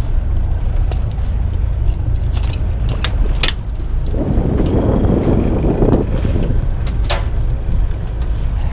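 A small fishing boat's engine runs with a steady low rumble, with wind on the microphone. Over it come several sharp clicks and knocks as jigging gear is handled against the aluminium gunwale, and a brief rushing noise midway.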